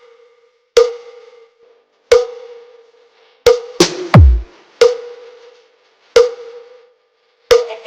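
Sound-check remix music: sparse electronic percussion hits a little over a second apart, each ringing on a steady tone, with one deep bass drop sliding down in pitch about halfway through.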